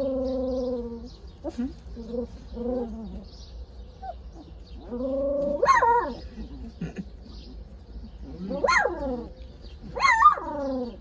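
Podenco puppies whining and yelping: a long steady whine at the start, a few short whimpers, then several louder yelps that rise and fall in pitch in the second half.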